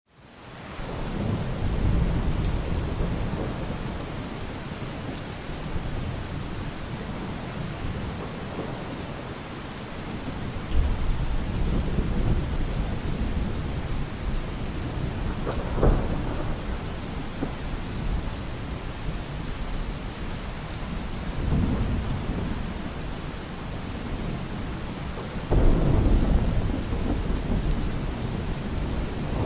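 Heavy rain falling steadily, fading in at the start, with low rumbles of thunder swelling up several times, the loudest near the end.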